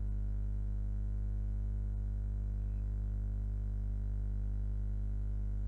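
A steady low hum, even and unchanging, with no separate knocks or rubbing sounds standing out above it.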